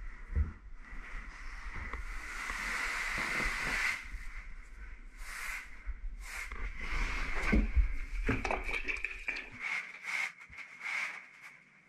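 Damp grout sponge rubbing across freshly grouted porcelain floor tile as the grout haze is cleaned off: a steady scrubbing hiss, then a run of separate wiping strokes. The strokes turn quieter and shorter near the end.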